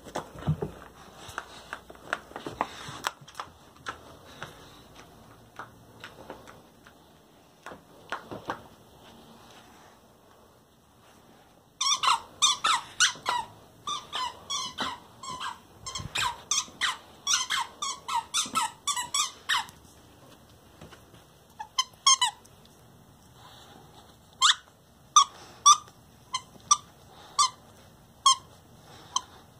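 Squeaker inside a plush KONG dog toy squeaking as a dog chews it. There is a fast run of short squeaks for about eight seconds, then separate squeaks a second or so apart. The first ten seconds hold only soft knocks and rustling.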